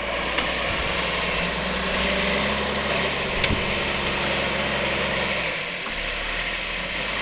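Backhoe engine running steadily, dipping briefly about five and a half seconds in, with two short sharp knocks.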